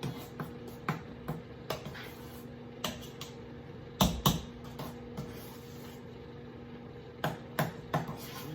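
Large spoon stirring thick pound cake batter by hand, scraping and knocking against the sides and bottom of the pan at irregular intervals, with two louder knocks about four seconds in. A faint steady hum runs underneath.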